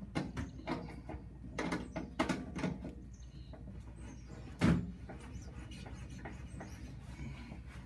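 Table saw's blade-tilt mechanism being adjusted back to 90 degrees: a series of light mechanical knocks and clicks, about two a second, then one louder clunk a little past halfway.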